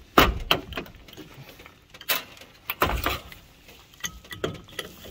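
Pliers clicking and scraping against a nut as it is turned down a threaded mounting stud on a PSC fan motor's metal end plate: a run of sharp, irregular metallic clicks.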